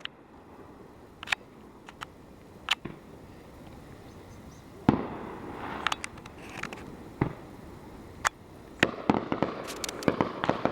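Fireworks going off: scattered sharp bangs a second or so apart, the loudest about five seconds in. Near the end they turn into a rapid run of crackling pops.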